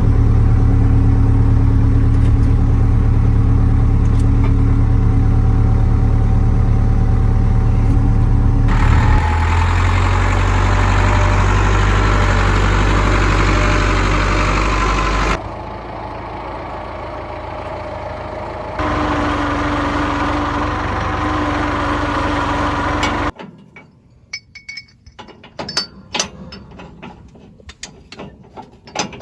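Tractor engine running steadily and loudly, its tone shifting abruptly a few times. Near the end the engine drops away, leaving light metallic clicks and knocks.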